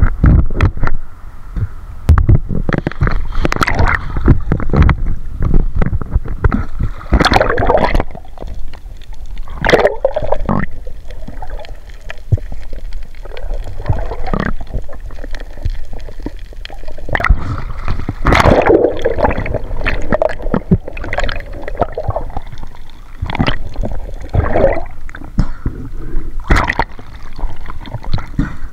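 Water gurgling and sloshing close to the microphone in irregular bursts.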